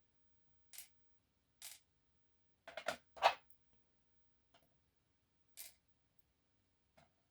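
Sparse light clicks and taps as the tiny key pins and sliders of a disassembled dimple lock are taken out and dropped, with a quick cluster of clicks about three seconds in, the loudest.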